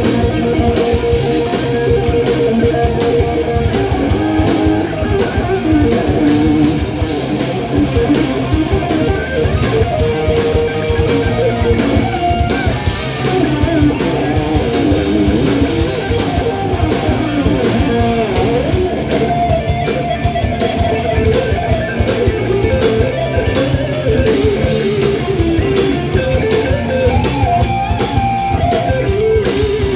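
A heavy metal band playing live: distorted electric guitars with melodic lead lines over fast drumming.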